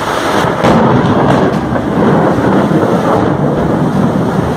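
Thunder rumbling over falling rain, the rumble swelling about half a second in.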